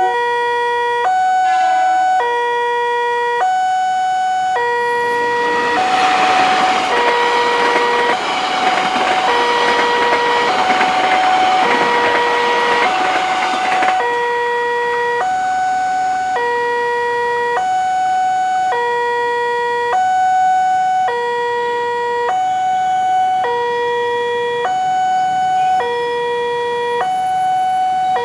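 Electronic warning alarm of a railway level crossing, sounding two tones that alternate about once a second, low then high. From about six to fourteen seconds in, a loud rushing noise rises over the alarm and then cuts off suddenly.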